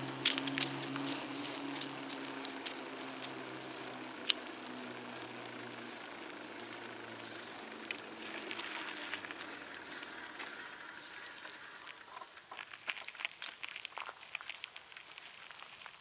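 Bicycle riding on a trail: a steady hum of tyres and drivetrain that fades away over the first ten seconds, with two short, sharp, high-pitched squeaks about four seconds apart. Near the end come scattered light clicks and taps as the bike slows.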